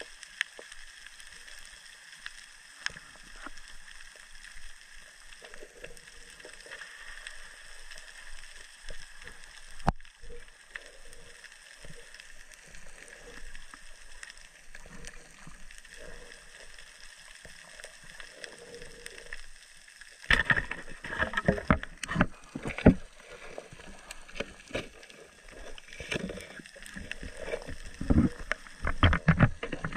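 Underwater sound picked up by a camera in its waterproof housing: a steady hiss with faint scattered clicks, then, about two-thirds of the way through, a run of loud irregular knocks and crackles.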